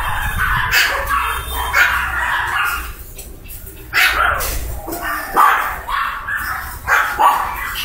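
A litter of poodle puppies yipping, several calling at once and overlapping, with a short lull about three seconds in.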